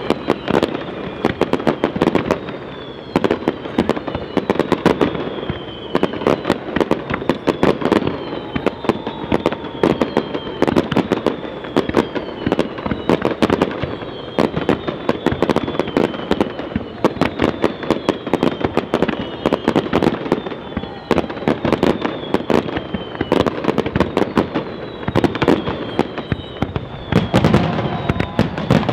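Aerial fireworks display: a dense, unbroken barrage of shell bursts and bangs, with short whistles falling in pitch every second or two.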